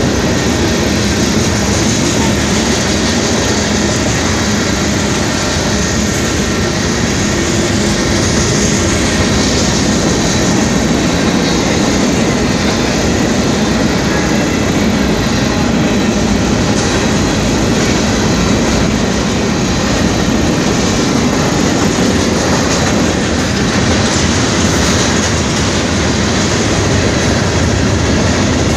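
Freight train cars rolling past over a grade crossing, a loud, steady noise of wheels on rail.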